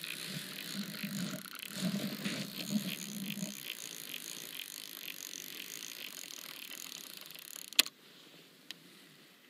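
Spinning reel's clicker ticking slowly and evenly as a catfish takes line on a slow run, fading after a few seconds, then one sharp snap near the end.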